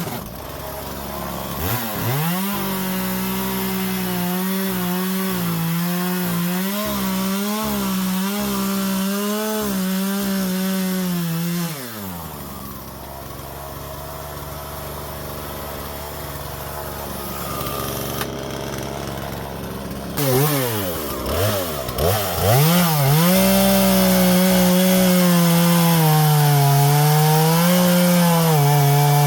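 Husqvarna 120 Mark II two-stroke chainsaw with a new Hipa replacement chain, run up to full throttle and cutting wood, its engine pitch wavering under load. About twelve seconds in it drops back to idle, is blipped a few times, and goes back to full throttle for another cut.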